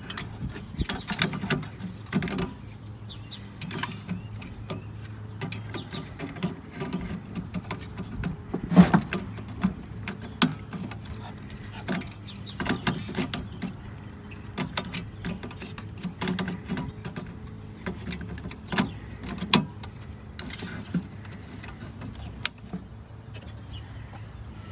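Irregular clicks and knocks of plastic parts as a headlight bulb and its igniter unit are handled and fitted back into a car's headlight housing, over a steady low hum.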